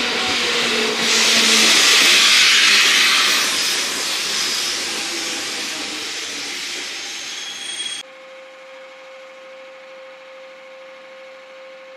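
A train passing at speed close by: a loud rushing of wheels on rails that swells about two seconds in and then fades away. About eight seconds in it cuts off abruptly, leaving a much fainter background with a steady tone.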